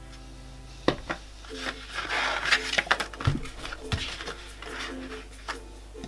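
Craft-table handling sounds: a few light knocks of a clear acrylic stamp block and a photo set down on the table, and a short rustle of paper being moved, over soft background music.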